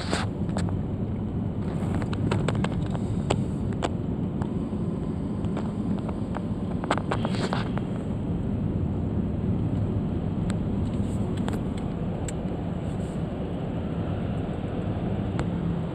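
Steady low rumble of a car rolling slowly down a ferry's vehicle ramp, heard inside the car's cabin, with scattered sharp clicks and knocks in the first few seconds and again around seven seconds in.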